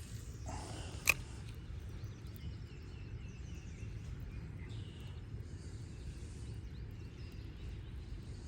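Outdoor background with a steady low rumble and faint, scattered bird chirps, broken by a single sharp click about a second in.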